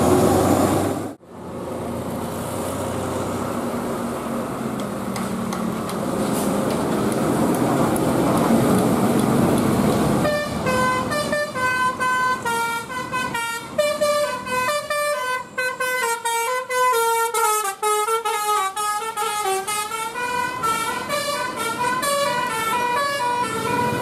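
Road traffic running past, slowly growing louder, then from about ten seconds a bus's basuri telolet horn plays a quick melody, its several tones stepping up and down note by note.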